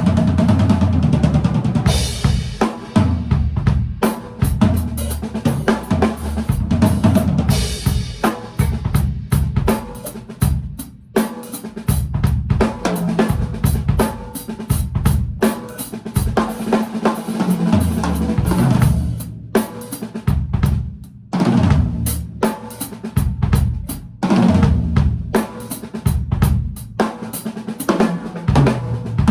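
Tama Superstar Maple drum kit with a stave maple snare played in a busy jam: bass drum, snare and rimshots, hi-hat and cymbal crashes in beats and fills. Recorded on an iPhone's microphone.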